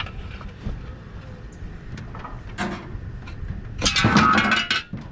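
Metal scraping and clanking as copper is worked off a heat-pump pool heater: a short sharp clink, then a loud, ringing metal-on-metal scrape lasting about a second near the end.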